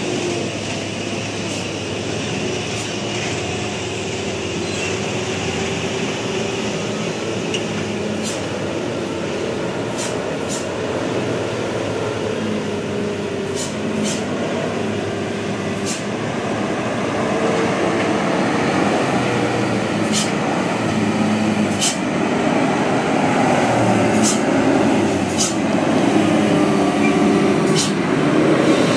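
Fully loaded Hino 500 dump truck's diesel engine running slowly as the truck creeps downhill, growing louder as it comes closer about two-thirds of the way in. Short sharp hisses come at irregular intervals.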